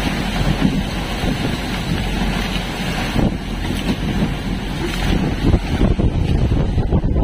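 Strong wind buffeting the microphone on a boat at sea, over the steady rush of waves and water along the hull.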